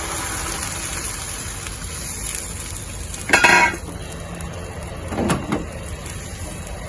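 Sauce mix in a hot frying pan, its hiss dying away, with a loud clatter of utensil against the pan about halfway through and a shorter one near the end.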